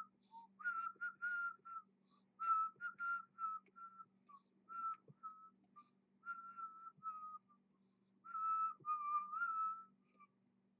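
A man whistling casually: short, breathy notes in runs, mostly on one pitch with small slides up and down, stopping near the end. A faint steady low hum lies underneath.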